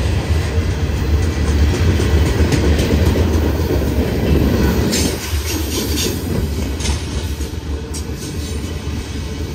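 Freight cars rolling past close by: a heavy, steady rumble of steel wheels on rail that eases about five seconds in, with a run of sharp high metallic clicks and squeals over the next two seconds.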